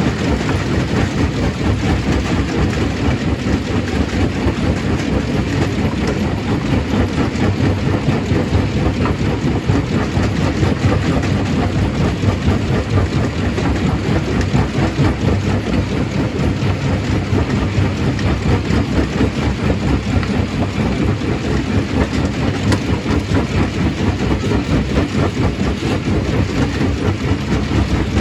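Stone crushing machine running under load, a steady, dense clatter of rock being broken over a heavy low rumble.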